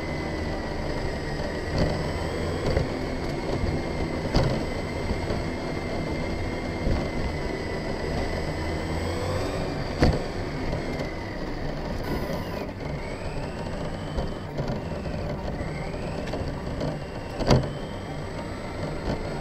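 Onboard sound of a Redcat Wendigo 1/10 RC truck driving: a thin drivetrain whine that rises and falls with speed over a steady rumble of tyres on the path. Sharp knocks sound about halfway through and again near the end.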